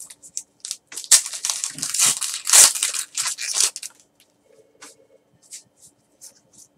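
Foil wrapper of a baseball card pack being torn open and crinkled: a dense crackling rustle for about four seconds, loudest at two tears about a second in and a little past halfway. Fainter scattered rustles and ticks follow as the cards are handled.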